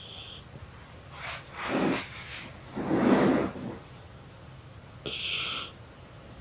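A dog snoring loudly: two long snoring breaths, the second the loudest, then a short hiss about five seconds in.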